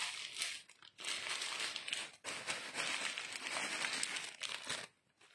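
Clear plastic wrapping crinkling in the hands as an artificial chrysanthemum head is pulled out of its bag and its fabric petals are worked loose. The crinkling breaks off briefly about a second in and again after two seconds, and stops shortly before the end.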